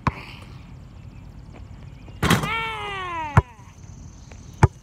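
A basketball thuds on the outdoor court three times: at the start, at about three and a half seconds, and near the end. A little past halfway comes the loudest sound, a high cry that slides down in pitch over about a second.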